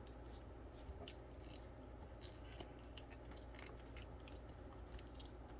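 Faint, irregular small clicks and taps of hands handling laptop parts during fan replacement, over a steady low hum.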